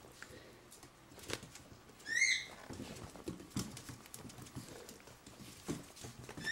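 Chinese crested puppies playing on a wooden floor: claws clicking and scrabbling on the boards, with a short high squeak about two seconds in and another at the very end.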